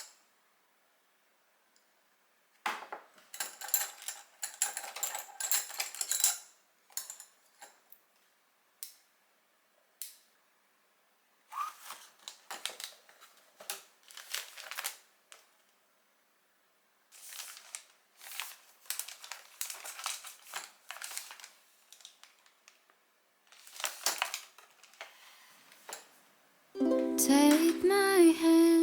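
Kitchenware being handled in several bursts of clicking and clattering, some with a bright ringing clink, with short pauses between them. Ukulele background music starts near the end.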